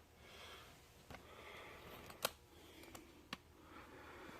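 Near silence with a few faint, scattered clicks, the clearest a little past the middle.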